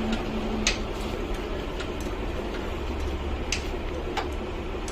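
A few light metallic clicks and taps from hand tools on a motorcycle being reassembled, over a steady background hum.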